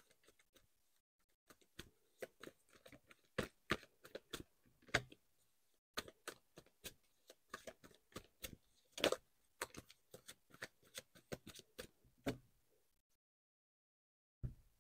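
Tarot cards being shuffled by hand: faint, irregular clicks and taps of card against card, stopping about two seconds before the end, followed by one soft thump.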